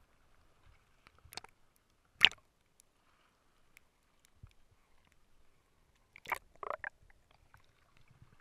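Muffled knocks and clicks as heard through an action camera's waterproof housing moving in the water. There is one sharp knock about two seconds in, and a short cluster of knocks and splashy sounds near the end as the camera comes up at the surface.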